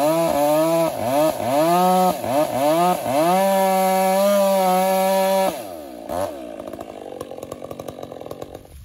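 Stihl two-stroke chainsaw cutting through a hung-up white oak trunk, its engine pitch dipping and recovering again and again as it works in the cut, then throttled back to a quieter idle about five and a half seconds in.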